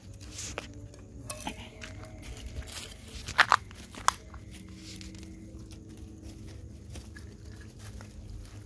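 Footsteps crunching on dry, gritty dirt, with scattered small clicks and knocks and a few sharp, loud clicks about three and a half seconds in.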